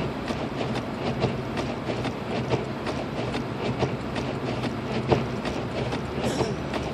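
Inside a Lexus IS250 AWD driving slowly on a snowy road: steady engine and road drone, with the hazard flasher ticking over and over.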